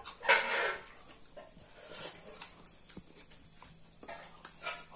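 Someone eating soup from a spoon: a short slurp just after the start, another brief slurp about two seconds in, and a few faint clicks of the spoon.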